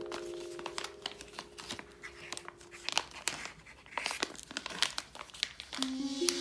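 Plastic highlighter packaging being torn open and crinkled by hand, a run of irregular crackles and rustles. Soft background music fades out early and comes back in near the end.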